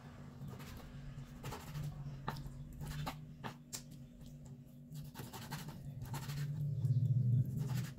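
Kitchen knife cutting raw chicken thigh fillet into cubes on a wooden cutting board: irregular taps and scrapes of the blade on the board. A steady low hum runs underneath and grows louder near the end.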